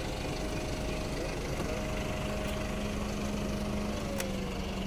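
Isuzu 600P aerial work platform truck's diesel engine idling steadily, with a thin steady whine that drops in pitch near the end.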